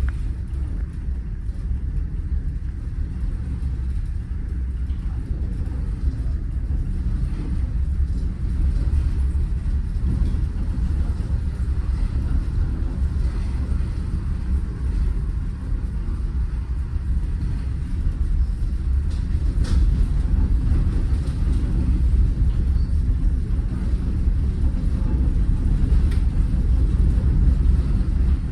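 Steady low rumble on board a car ferry under way, growing slightly louder toward the end, with a few faint clicks.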